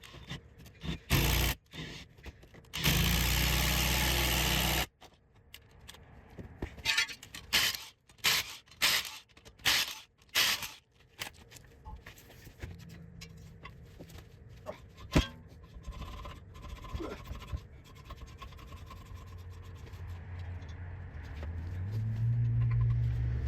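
Brake-job work on a car wheel: a short burst and then a steady loud burst of about two seconds from a power tool, followed by a run of clanks and scrapes of metal parts being handled. A low hum builds near the end.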